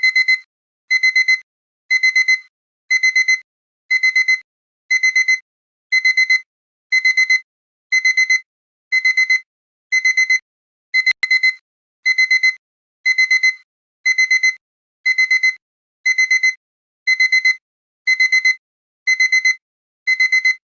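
Digital alarm-clock beeping: a high electronic beep in groups of four quick pulses, repeating about once a second, signalling that the 50-minute countdown has run out.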